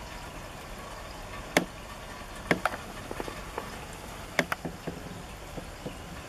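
Steady rain falling, with a handful of sharp taps on a hard surface scattered through it; the loudest come about one and a half, two and a half and four and a half seconds in.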